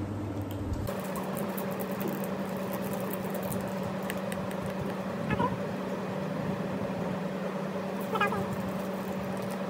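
Plastic wrapper of a Kismi toffee bar crinkling as it is opened by hand, over a steady low hum. Two short high squeaks come about halfway through and near the end.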